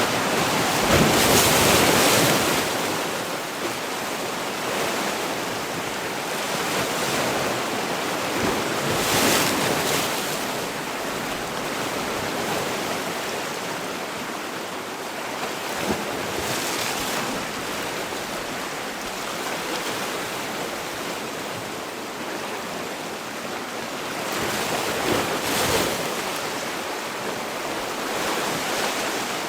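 Sea waves washing onto a shore in a continuous rush, with a few louder breakers swelling and fading: one about a second in, another near ten seconds and one near the end.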